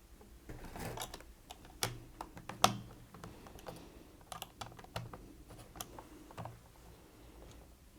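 A small screwdriver undoing a battery screw on a Dyson V6 stick vacuum's plastic body: a faint, irregular scatter of light clicks and ticks, the two sharpest a little under two seconds and near three seconds in.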